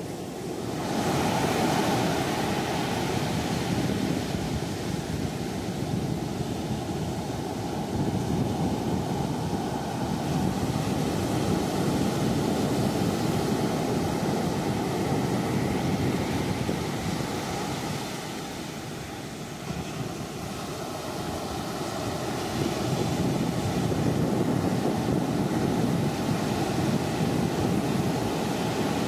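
Steady rush of sea water and wind around a fishing boat under way, with a faint steady hum underneath; the noise dips briefly about twenty seconds in.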